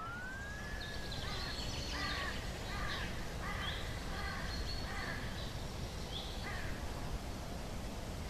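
Outdoor country ambience with birds calling: short, arched calls repeated in clusters about every half second, over a steady background hiss. At the start a single pitched tone glides down and fades in the first second and a half.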